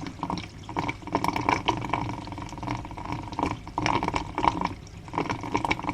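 Washing-machine waste water pouring steadily into a newly fitted floor drain trap and draining away freely.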